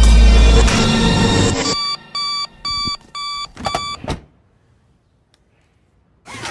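Bass-heavy film music that cuts off abruptly, then a run of about five high electronic beeps, roughly two a second.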